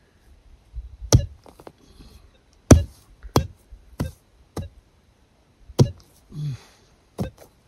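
Digging tool chopping into the ground to dig out a metal-detector target: about eight sharp strikes at uneven intervals, with loose dirt scraping between them.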